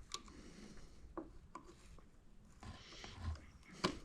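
Faint handling sounds as pliers work inside a scooter's blinker housing, trying to grab a wire: a few sharp small clicks, the loudest near the end, over light rubbing.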